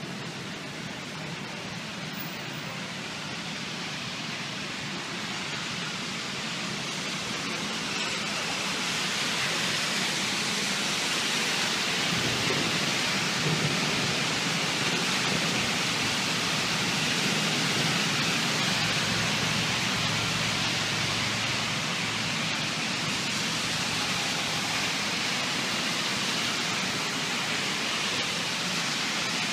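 Heavy thunderstorm rain pouring down, a steady rushing that builds over the first ten seconds or so and then holds.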